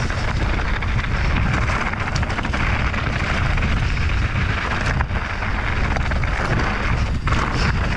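Mountain bike rolling fast down a dirt trail with wind buffeting the microphone: a steady low rush, with a few sharp clicks and rattles from the bike.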